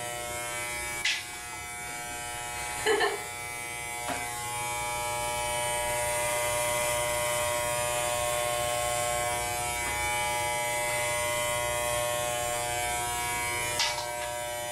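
Corded electric hair clipper buzzing steadily as it shaves through long hair, with a few short sharp sounds over the buzz.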